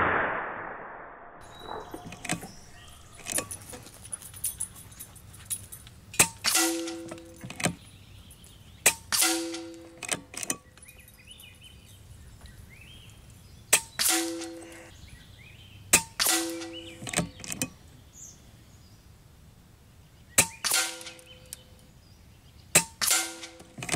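Kalibrgun Cricket 2 Tactical .22 PCP air rifle fired about six times, each sharp crack followed about a third of a second later by a short ringing clang as the pellet strikes downrange. Smaller clicks fall between the shots.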